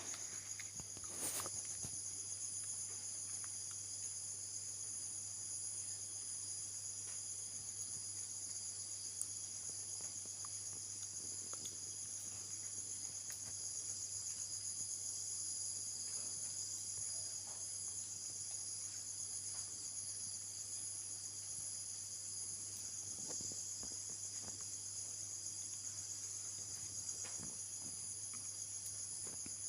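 Steady high-pitched chorus of insects, with a low steady hum underneath and a few faint clicks.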